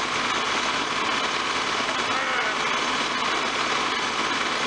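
Farm tractor engine idling steadily, with an even mechanical hiss.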